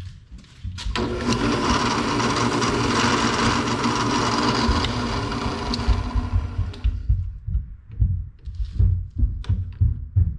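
A drill press runs steadily with a whine for about six seconds, then shuts off and spins down; a few low knocks and handling sounds follow.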